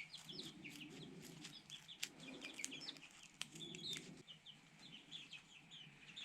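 Faint, rapid peeping of young chickens: many short high chirps one after another, with a few sharp clicks among them.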